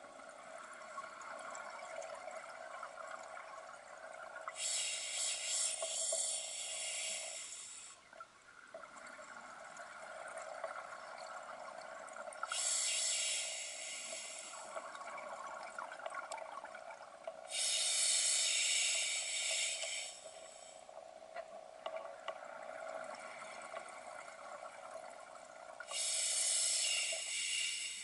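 Scuba diver breathing through a regulator underwater: four loud bursts of hissing bubbles, each two to three seconds long and about every seven seconds, over a steady underwater hum.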